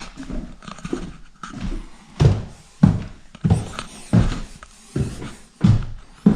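Footsteps walking at a steady pace, a dull thump about every two-thirds of a second from about two seconds in, with fainter knocks and rustles before.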